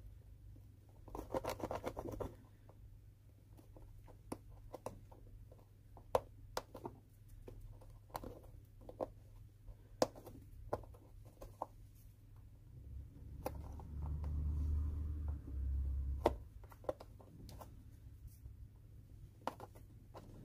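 Stitch picker snagging and pulling old stitches out of the welt of a leather shoe: faint, scattered small clicks and scratches, with a short scratchy patch about a second in. A low rumble comes in for a few seconds past the middle.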